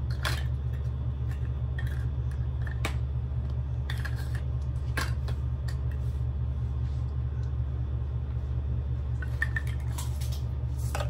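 A steady low hum runs throughout, with a dozen or so scattered light clicks and taps of small objects being handled.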